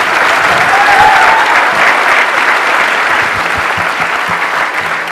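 A large audience applauding: steady, dense clapping that carries on throughout.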